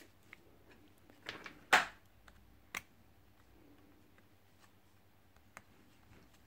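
Small clicks and taps from handling an opened iPhone XS, its display being swung open and a flex-cable connector pressed onto the logic board. One short, louder knock just under two seconds in, and fainter ticks later on.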